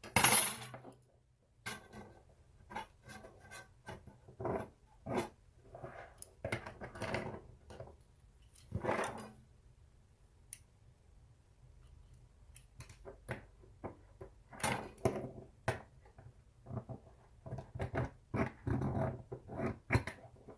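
Intermittent short scrapes and clicks of marking out on a flat bar: a caliper jaw scribing lines through marker ink, and tools being picked up and set down, with a sharp clack right at the start.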